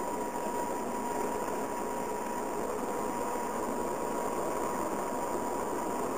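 Diesel engine of a BOMAG BW 213 DH padfoot single-drum roller running steadily, heard from the operator's seat, with a constant high tone running through it.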